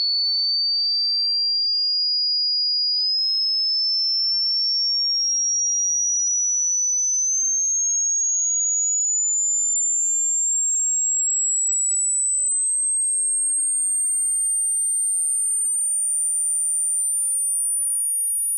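Pure sine test tone for a hearing-range test, high-pitched and held at a steady loudness while it climbs slowly and evenly higher in pitch.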